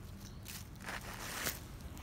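Dry twigs and dead leaves rustling and snapping on a small smoking wood fire as sticks are laid on it by hand, with a few short crackles, the loudest about one and a half seconds in.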